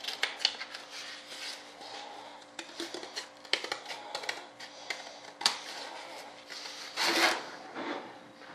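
Cardboard and paper templates being handled and worked on a workbench: rustling, scraping and light taps, with a louder rustle about seven seconds in.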